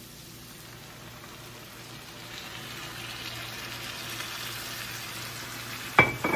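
Chicken livers and onions sizzling in a frying pan. The sizzle swells louder from about two seconds in as the pan is deglazed with whiskey. A sharp metallic clink rings out near the end.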